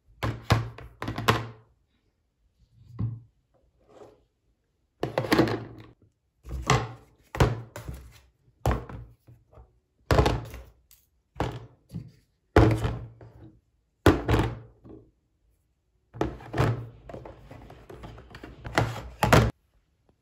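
Plastic skincare bottles and tubes being picked up and set down one by one in a clear plastic storage bin: about twenty separate knocks, some in quick pairs, with short silent pauses between groups.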